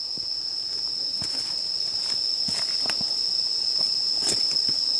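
Night insects singing a continuous, steady high-pitched trill, with irregular soft footsteps on leaf litter and bare ground.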